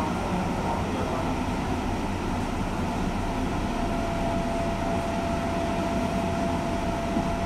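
A stationary 201 series electric train humming steadily at the platform, its onboard equipment running while it stands. A thin steady tone comes in about halfway through and stops shortly before the end.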